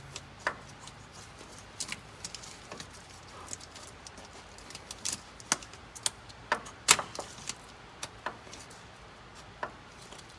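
Irregular sharp metal clicks and clinks from a filter wrench being fitted and turned on a spin-on fuel filter, snugging it a quarter to half turn.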